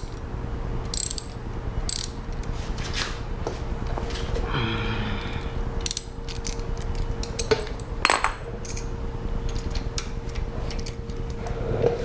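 Ratchet wrench with a T45 Torx bit clicking as it loosens a bolt, with scattered sharp clicks and knocks from the tool, and a longer rasping run of ratchet clicks about four to five seconds in.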